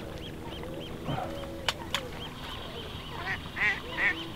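Waterfowl calling on the water: a run of short, high, evenly repeated calls, with louder calls about three seconds in. Two sharp clicks come near the middle.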